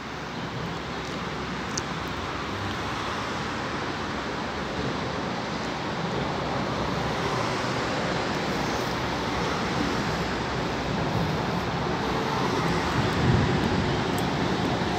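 Freight train hauled by an ET22 electric locomotive approaching on the line, a steady noise growing gradually louder as it nears.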